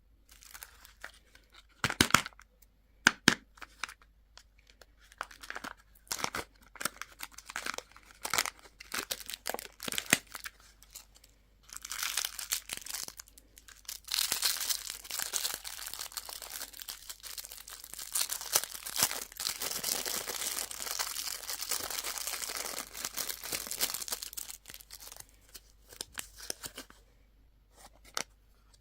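Wrapping on candy and toy packaging being torn and crinkled by hand. It starts as scattered sharp crackles and rips, then runs about twelve seconds of dense, continuous crinkling, then trails off into a few last crackles.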